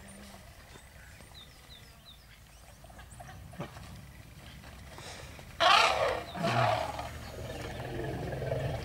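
African elephant trumpeting: one loud, harsh blast a little past halfway, followed at once by a shorter, lower call that drops in pitch. It is a threat call at the African wild dogs pressing the elephant herd and its calf.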